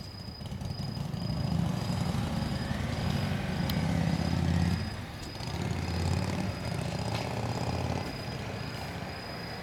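Several motorcycles riding off together, their engines making a low rumble that builds over the first couple of seconds, dips briefly about five seconds in, then eases off as they move away.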